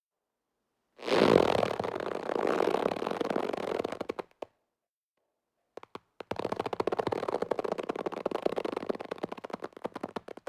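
Rubber being stretched, creaking with a fast, rough squeak made of many tiny rapid ticks. Two long stretches: one starting about a second in and lasting about three seconds, the second starting past the six-second mark and running about four seconds.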